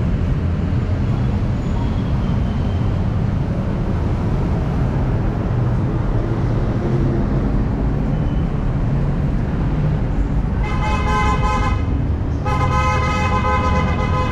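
Steady street-traffic rumble, with a vehicle horn sounding twice near the end, the first blast about a second long and the second longer.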